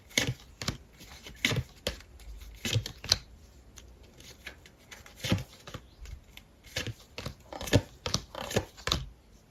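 Tarot cards being handled: a string of irregular sharp snaps and taps as cards are shuffled, flicked and laid down.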